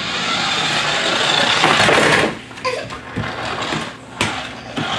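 Battery-operated bump-and-go toy ambulance running across a wooden floor, its motor and wheels whirring, loudest for the first two seconds, with a few knocks, the sharpest about four seconds in.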